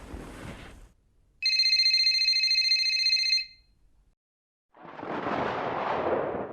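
A telephone ringing: one trilled ring of high, steady tones about two seconds long, starting about a second and a half in. Near the end a rushing noise swells up.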